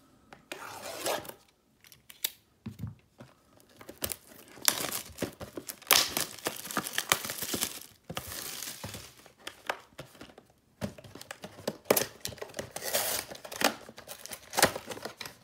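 Cellophane shrink-wrap being torn and pulled off a cardboard trading card box, crinkling and crackling in irregular bursts with short pauses, busiest in the middle.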